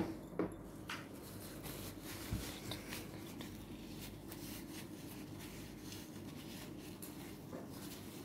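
A glass jar set down on a plastic tabletop with a sharp knock, followed by a few lighter clicks and a dull thump about two seconds in, over a steady low room hum.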